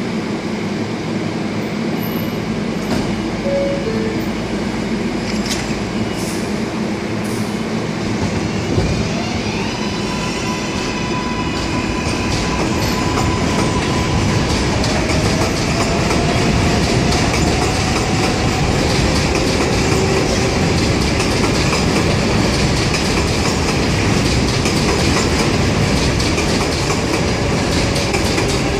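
R142A subway train closing its doors after a short two-note chime, then pulling out and picking up speed. Its traction motors whine in stepped, rising tones over the rumble and clatter of the wheels on the rails.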